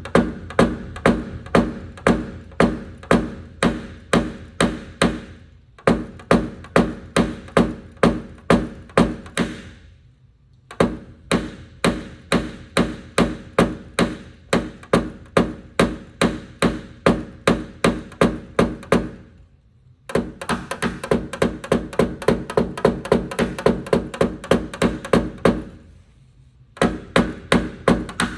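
Mallet tapping a tap-down punch against an aluminum pickup liftgate: quick, even taps, each with a short pitched ring, about two to three a second and faster, about four a second, in the later runs, broken by brief pauses. This is paintless dent repair, knocking down the high metal around the dent.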